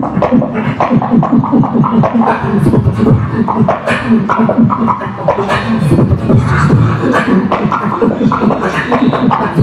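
Beatboxing through a handheld microphone: a fast, dense stream of vocal kicks, snares and hi-hats over pitched bass tones.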